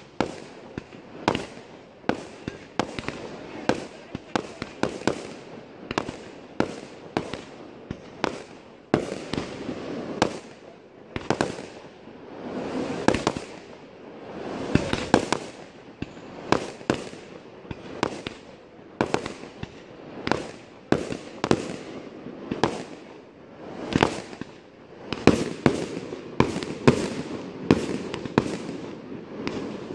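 A professional fireworks display with aerial shells going up and bursting. The sharp bangs come in a rapid, uneven string of about two a second.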